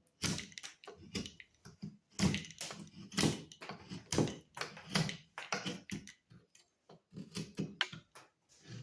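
Irregular knocks and taps, about one every half second to a second: objects being handled close to the microphone.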